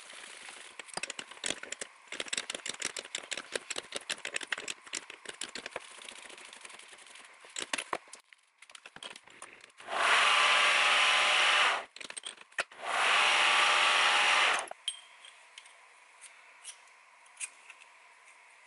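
Abrasive pad pressed against a steel rod spinning in a metal lathe, polishing it: two loud, even scrubbing rubs of about two seconds each, starting about ten seconds in. Before them comes a stretch of rapid crackling clicks from the lathe work.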